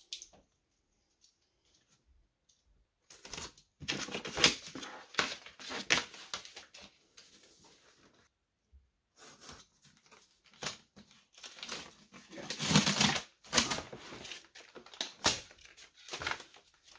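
Box cutter slicing through packing tape and cardboard on a shipping box, with scraping and rustling of the cardboard as the box is handled. It comes in rough, uneven strokes, starting a few seconds in, with a short pause near the middle.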